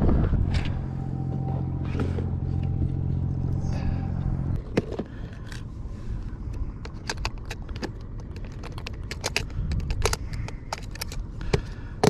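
An engine running steadily, cutting off about four and a half seconds in, followed by a run of sharp clicks and light rattles.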